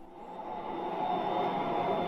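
Kitchen appliance running: a steady rushing noise that swells up over the first second and then holds.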